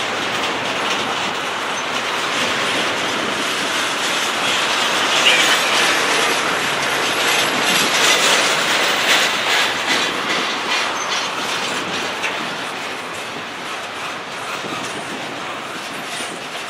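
Freight train cars, double-stack intermodal well cars, rolling past with wheels clicking over the rail joints. There is some wheel squeal, and the noise grows louder midway.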